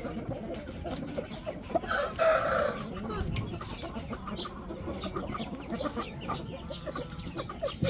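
Shamo gamefowl clucking, with one rooster crowing for about a second about two seconds in, amid many small scuffs and clicks.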